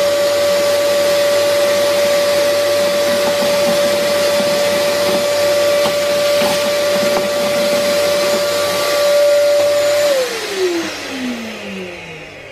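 Vacuum cleaner sucking up sawdust from a freshly routed wooden sign: a steady motor whine over a rush of air through the hose. About ten seconds in it is switched off and the motor winds down, the whine falling in pitch.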